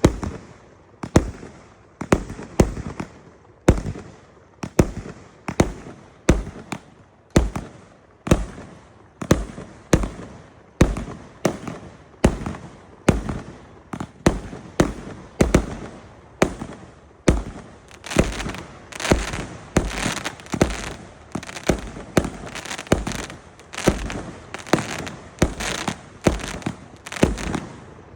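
A 168-shot multi-shot fireworks cake firing in steady succession, about two shots a second, each a sharp bang followed by crackle. About two-thirds of the way through, dense crackling fills the gaps between the bangs.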